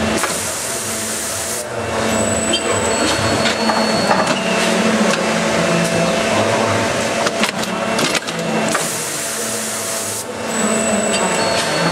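Seedling-tray sowing line running: a steady machine hum with knocks and clatter of trays, and a hiss of about a second and a half that comes right at the start and again about nine seconds later, each time followed by a brief high whine.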